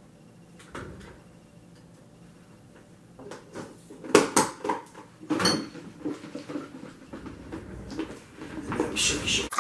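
Plastic food-storage tub and its snap-on lid being handled and pressed shut: a single click, then a cluster of sharp plastic clicks and knocks about four to five seconds in, with more handling noise near the end.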